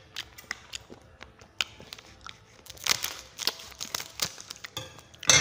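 A snack-cake packet being handled and cut open with scissors: its wrapper crinkles and crackles in a series of short, irregular bursts. The loudest burst comes near the end.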